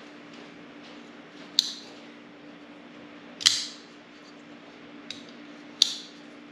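Three short, sharp clicks about two seconds apart, over a steady low hum.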